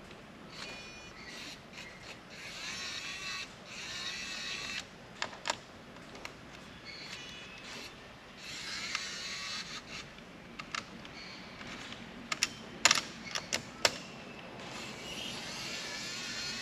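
Kaiweets ES20 cordless electric screwdriver whining in short runs as it backs screws out, its pitch rising as it spins up. Sharp clicks and taps in between, loudest about 13 seconds in.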